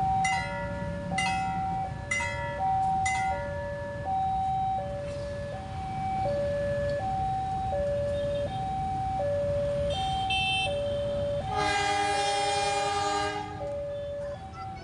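Railroad crossing alarm sounding its two-tone electronic chime, alternating a high and a low note steadily, with sharp ringing strikes over it in the first few seconds. Near the end a train horn sounds loudly for about two seconds.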